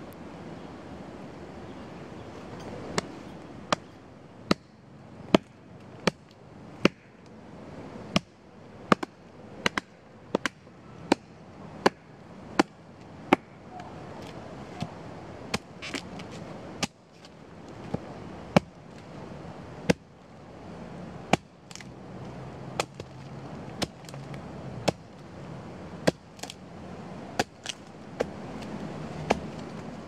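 A blade chopping into a rotten tree stump: sharp, dry strikes starting about three seconds in, first in a steady run of roughly four every three seconds, then more unevenly with short pauses.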